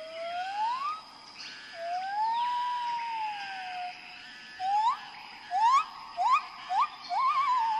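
A clear whistle-like tone: a slow rising glide, then a longer glide that rises and falls back, then about five quick upward sweeps and a wavering trill near the end.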